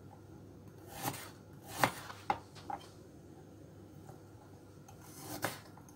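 Kitchen knife slicing a carrot into thin rounds on a plastic cutting board: a handful of separate, sharp knocks of the blade hitting the board at uneven intervals, with a longer pause before the last one.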